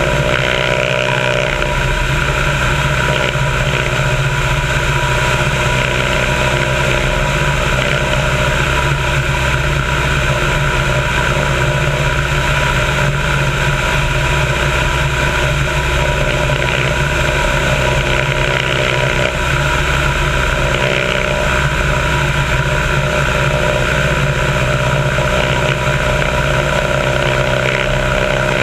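Biplane's piston engine and propeller droning steadily in flight, with wind rushing over a microphone on the upper wing.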